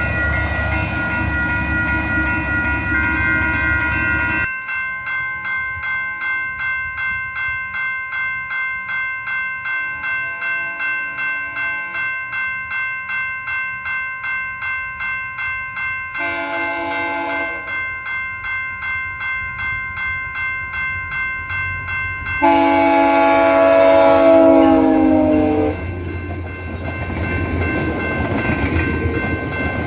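Railway crossing bell ringing at about two strokes a second while a train approaches. A brief train horn blast sounds about two-thirds of the way in, then a longer, louder blast a few seconds later, and the rumble of the passing train follows. It opens with train rumble that cuts off suddenly a few seconds in.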